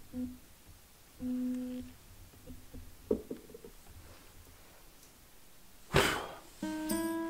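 A single short puff of breath blowing out beeswax candles in glass jars, about six seconds in. Before it, a couple of short low hums and a few light clicks; near the end, gentle mallet-like music begins.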